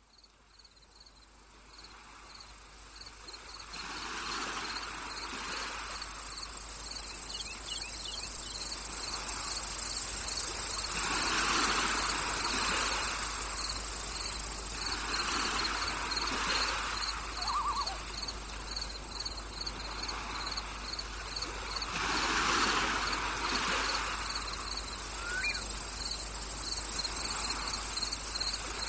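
Crickets and other insects chirping, with a steady high trill and a fast repeating chirp. Under them a soft rushing swells and fades every few seconds. The sound fades in from silence over the first few seconds.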